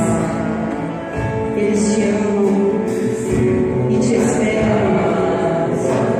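Music with a voice singing.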